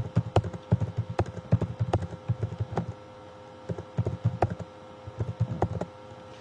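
Computer keyboard typing: about six quick runs of clicking keystrokes, a short command typed and entered again and again.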